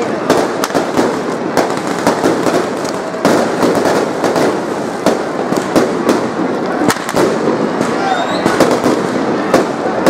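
Aerial fireworks going off overhead: a dense, irregular run of sharp bangs and crackles, one after another, with no let-up.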